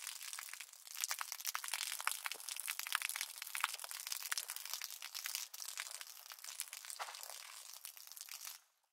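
Dense, irregular crackling and clicking with nothing in the low end, like crumpling or sizzling; it cuts off near the end.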